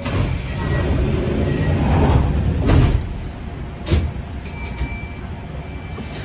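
Kintetsu electric commuter train running on its line, its wheels rumbling on the rails and growing louder up to about three seconds in. About four seconds in comes a single sharp clack from the wheels.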